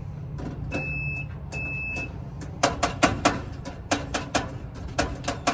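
Multimeter continuity beeper sounding twice, two short steady high beeps of about half a second each, as the probes bridge a closed circuit. Then a quick series of sharp clicks and taps from the test probes and parts being handled, over a steady low hum.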